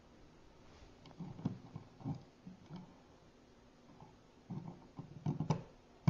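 A loose wall outlet being pushed in with a finger and knocking and clicking in its box as it springs back out. It keeps popping out because the box sits too far back and needs spacers. Faint scattered knocks, with a quicker run of them near the end.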